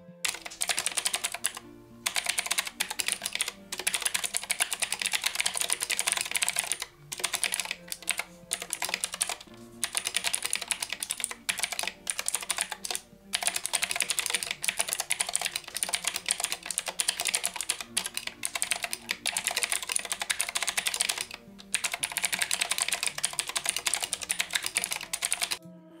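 Typing on the Ultra Smart 5-in-1 TKL mechanical keyboard with blue switches: a fast, dense run of sharp key clicks, broken by several brief pauses.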